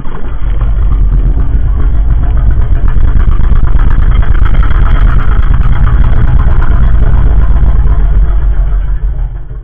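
Monster sound effect for the Goblin Shark: a loud, continuous, rough low rumble with a rattling texture. It builds over the first second and cuts off suddenly near the end.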